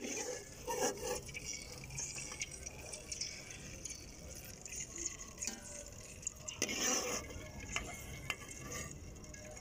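Perforated metal skimmer clinking and scraping against aluminium pots while fried gulab jamun are scooped out of the oil, drained and moved into the sugar syrup. The clinks and scrapes come irregularly, the loudest about a second in and about seven seconds in.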